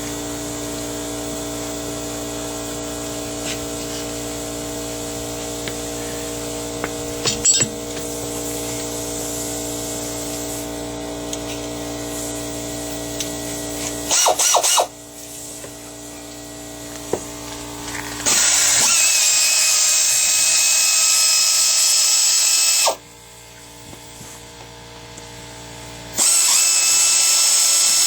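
A steady hum with several fixed tones for about the first half. Then a power tool runs in two long bursts of about four seconds each, a loud high whining hiss.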